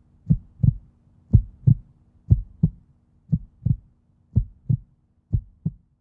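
Heartbeat sound effect: a deep double beat about once a second, growing fainter toward the end.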